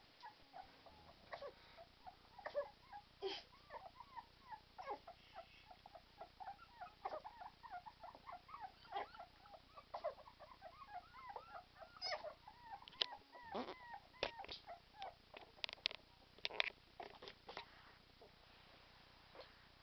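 English bull terrier puppies whimpering and squeaking: a rapid run of short, high cries that thins out near the end, with sharp clicks among them in the second half.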